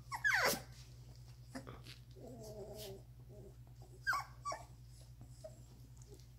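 Two-and-a-half-week-old Doberman puppies whimpering: a loud whine that falls in pitch right at the start, a low held note about two seconds in, and two short whimpers about four seconds in. A steady low hum runs underneath.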